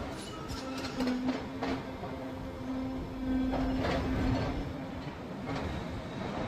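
Heavy construction machinery running with a steady low drone, broken by several sharp metallic clanks.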